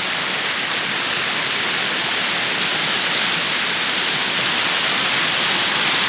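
Water of a small waterfall rushing and splashing over rocks right beside the microphone: a loud, steady rush with no breaks.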